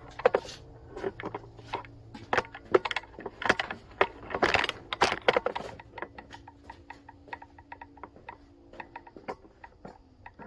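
Metal clicks and knocks from handling an air-line quick-connect chuck on a tire valve stem, loudest and most irregular in the first half, then a run of lighter, evenly spaced ticks over a faint steady hum.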